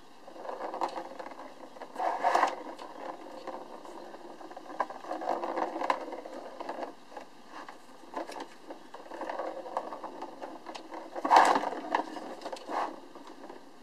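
A ball rolling and rattling around the circular plastic track of a cat scratcher toy, batted along by a kitten in several separate bursts with a few sharp knocks. The loudest burst comes near the end.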